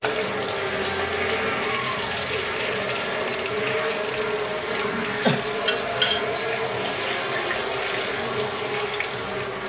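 Beltfish pan-frying in hot vegetable oil, a steady sizzle, with a few sharp clicks a little past the middle.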